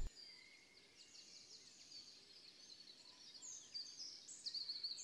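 Faint birdsong: small birds chirping with short, high, falling notes, sparse at first, then a quick run of chirps growing louder over the last second or so.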